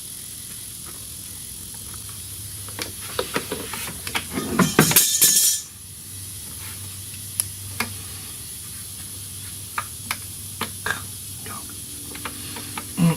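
Hand tools and parts being handled in an engine bay: scattered sharp clicks and scrapes, with a loud rush of rustling, hissing noise for about a second around five seconds in.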